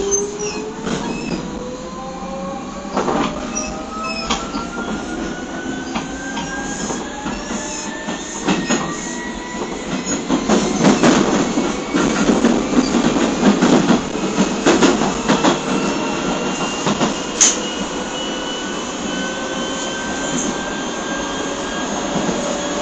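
Running sound of a Keio 7000 series motor car (DeHa 7052) with field-chopper control, heard inside the car. The traction motor whine climbs steadily in pitch as the train gathers speed. Rail-joint clicks come and go, with a louder rumbling stretch about halfway through.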